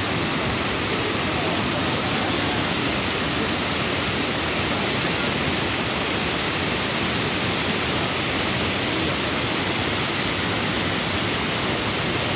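Cold lahar, a volcanic mudflow of muddy water and sediment, rushing down a river channel in a steady, unbroken noise.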